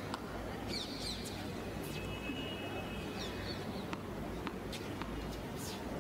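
Hard-court doubles tennis rally played back from a television, over a steady hiss: short high-pitched squeaks of players' shoes on the court, one held longer, and a few sharp ball strikes.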